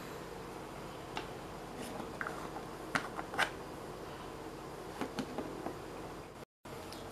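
Plastic screw-top lid being put on a small plastic jar and twisted shut: a few light clicks and taps, the loudest about three seconds in, over a steady low hum.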